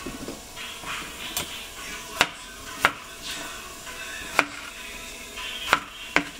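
Knife chopping bok choy stalks on a plastic cutting board: about six sharp single chops, unevenly spaced.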